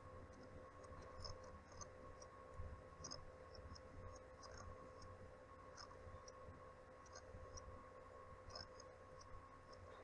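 Near silence: faint room tone with a steady electrical hum and scattered faint ticks.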